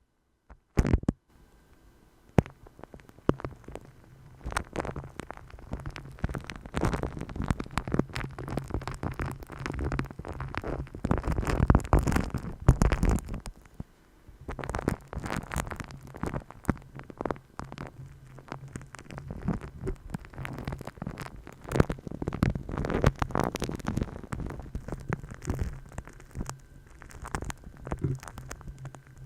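Close-miked ASMR massage sounds: hands rubbing against the microphone, a dense, irregular crackling that swells and eases, with a short lull about 14 seconds in.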